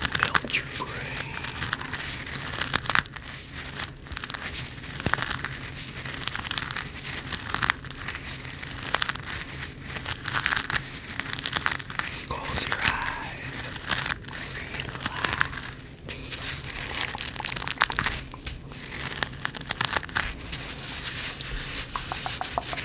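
A hacky sack squeezed and kneaded close to the microphone, its pellet filling crunching and crackling in a continuous stream of small clicks.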